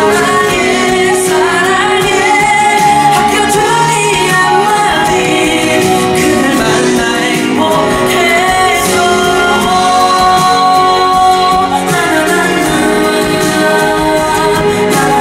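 A young male trot singer singing live into a handheld microphone over instrumental backing music.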